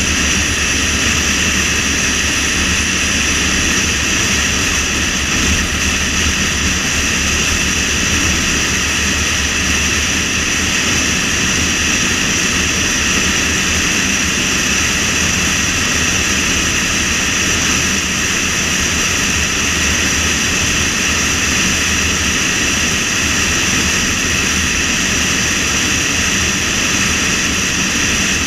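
Steady wind and road noise from a car driving at speed, holding at an even level with no changes.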